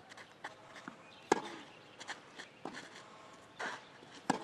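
Tennis ball struck hard with a racket twice, about three seconds apart, with fainter knocks between the hits.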